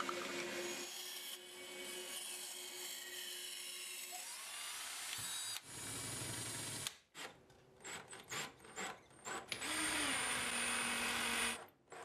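Band saw running and cutting bamboo for about the first five seconds, then a power drill boring into bamboo, followed by several short drill bursts and a longer steady drill run near the end.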